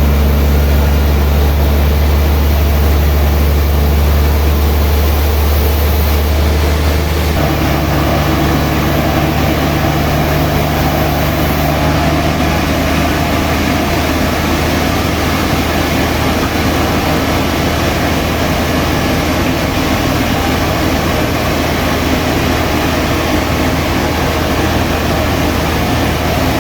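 Sawmill machinery running steadily with a strong low hum. About seven seconds in the sound changes: the low hum drops back and a higher, rougher sound comes up, and this holds to the end.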